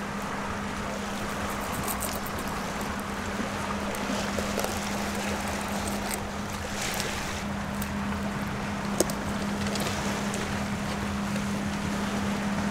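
Rushing river water and wind noise with a steady low hum, over which scissors snip and crunch through a bait fish's fins and bones in a few short clicks, the sharpest about nine seconds in.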